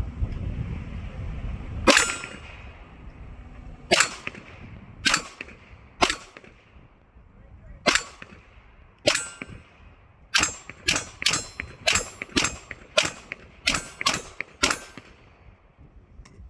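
Glock 19 in an MCK conversion kit firing 9mm, about fifteen single shots. They come slowly at first, then about ten seconds in as a quicker string of roughly two a second.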